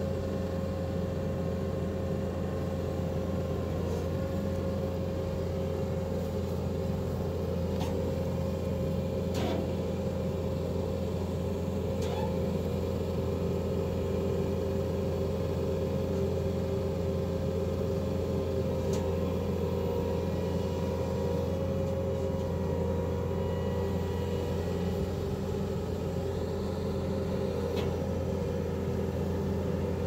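Bobcat compact track loader's diesel engine running steadily under work, with a steady higher hum over its low drone. A few sharp knocks come through it while the loader shifts a pine log onto a dump trailer.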